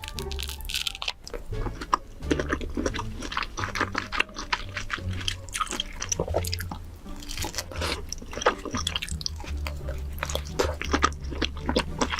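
Close-miked eating: a person chewing and biting, with irregular crunches and wet smacking sounds, over a low, quiet music bed.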